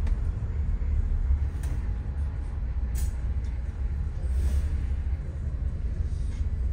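Bus cabin noise while riding: a steady low rumble of engine and road, with a few sharp rattles or clicks and a brief hiss about four seconds in.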